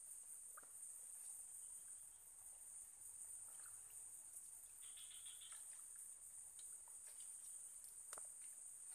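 Quiet scene with a steady high-pitched drone of insects and a few faint rustles and scrapes of hands working in soil and leaves.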